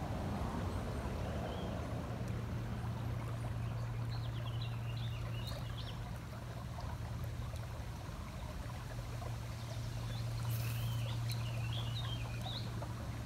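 Ambience of a shallow rocky creek: a faint steady wash of water over a low, steady rumble. A bird chirps in short twittering phrases twice, a few seconds in and again near the end.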